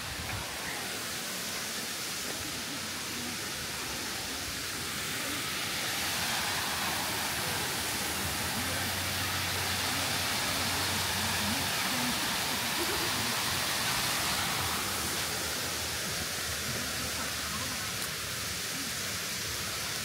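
Steady rush of water from a cascading waterfall and stream, growing a little louder midway and then easing off.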